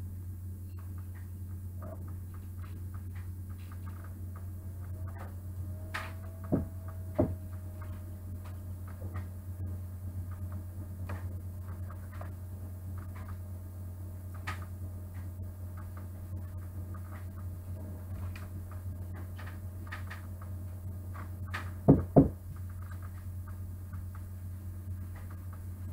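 Ceramic nativity figurines being set down on a cloth-covered table: two knocks about six and seven seconds in, and a quick pair of louder knocks near the end, over a steady low hum and faint ticking.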